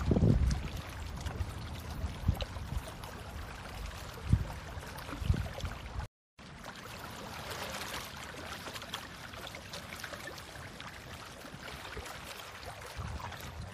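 Outdoor wind and water noise: a steady rushing hiss, with a few short low thumps in the first half and a brief dropout about six seconds in.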